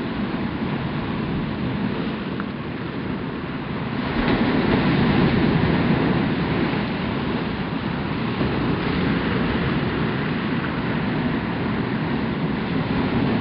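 Ocean surf breaking and washing over flat coquina rock ledges, a steady rushing that swells louder about four seconds in.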